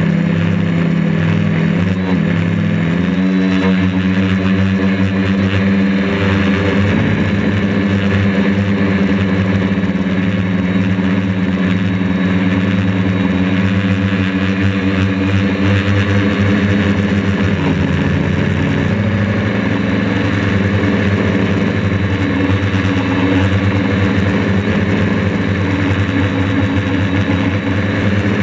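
DJI Flamewheel F450 quadcopter's electric motors and propellers buzzing steadily in flight, heard loud and close from the camera mounted on it. The pitch steps a few times: once about three seconds in, and again in the middle.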